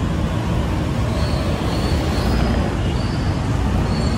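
Steady city road traffic: a continuous low rumble of car and motorcycle engines and tyres on a multi-lane boulevard.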